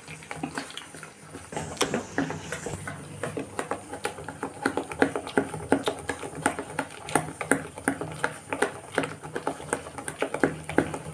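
A bare hand beating thick fermented rice-and-urad-dal dosa batter in a stainless steel bowl, making a steady run of wet slaps and squelches a few times a second. The batter is being whipped by hand to fill it with air and lighten it.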